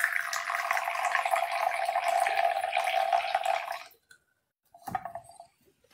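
Coffee being poured from a jebena, an Ethiopian clay coffee pot, into a small cup: a steady stream of liquid for about four seconds, then a short second pour about five seconds in.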